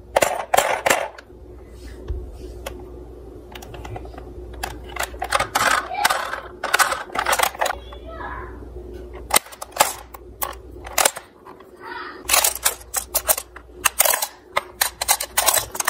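Irregular clicks and taps of hard plastic as a toy ambulance is handled: its rear doors are opened and its plastic stretcher is pulled out.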